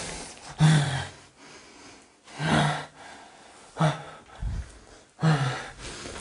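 A person's heavy breaths, four of them about a second and a half apart, each carrying a low droning tone.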